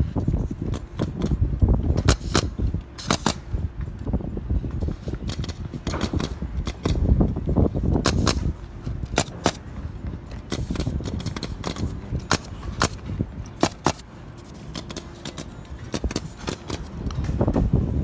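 Pneumatic roofing nail guns firing into an asphalt-shingle roof: sharp single shots at irregular intervals, a few dozen in all, over a constant low rumble.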